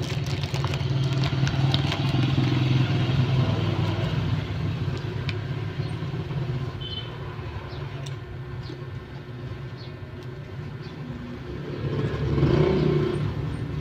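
Steady motor vehicle engine noise, swelling briefly about twelve seconds in, with a few faint clicks.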